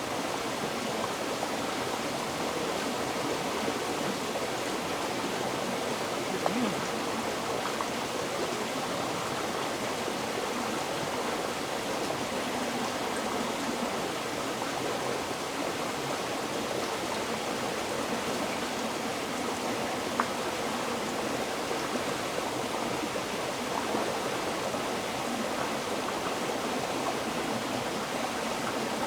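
River water flowing, a steady even rush with no let-up, broken only by two brief clicks about six and twenty seconds in.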